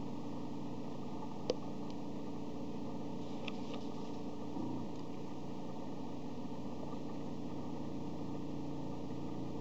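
Prusa Mendel 3D printer's stepper motors humming as they drive a Sharpie marker across paper, a set of steady tones whose pitch shifts about halfway through as the moves change. A single sharp click about a second and a half in.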